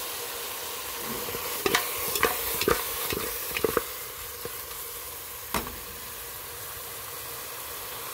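Free-range chicken pieces sautéing in an aluminium pressure cooker, a steady sizzle. A spoon knocks and scrapes against the pot several times in the first four seconds and once more about halfway through.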